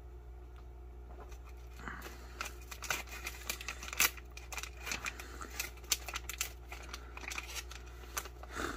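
Foil food pouch being torn open and crinkled by hand, starting about two seconds in: a string of sharp crinkles and crackles, the loudest about four seconds in, as the wrapped food tube is worked out of the pouch.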